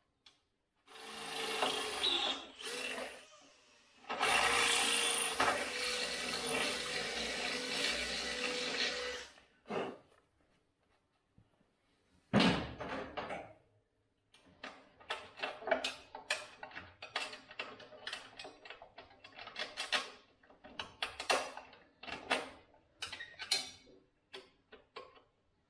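A small power tool runs in two bursts, a short one and then one of about five seconds, with a steady motor whine. A single loud knock follows, then a long run of quick, uneven clicks from hand-tool work.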